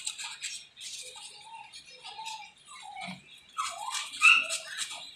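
Small stiff brush scrubbing caked mud and grease off a motorcycle engine and exhaust pipe in quick scratchy strokes. High squeaky chirps run through it and are loudest a little past the middle.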